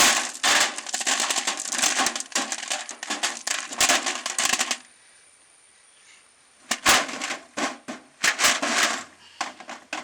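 Small pieces of crushed stone poured into an empty metal oil tin, rattling and clattering against the tin's bottom and sides. A long pour of nearly five seconds, then after a pause a few shorter handfuls.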